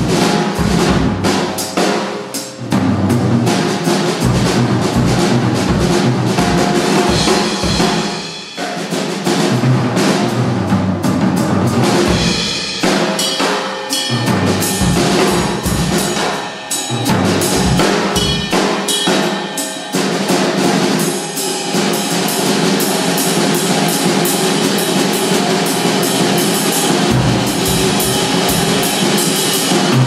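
Drum kit played in a fast, busy solo: snare and bass drum in dense rolls and fills under ringing cymbals, with a few brief breaks.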